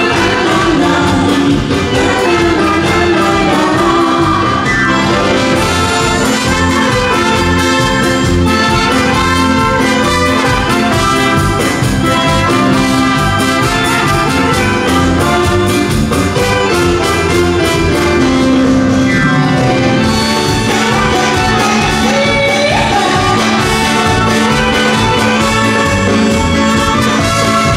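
A live dance band plays with drums and keyboard. Two women sing at the start, then the tune runs on as an instrumental passage led by saxophone, clarinet and trumpet.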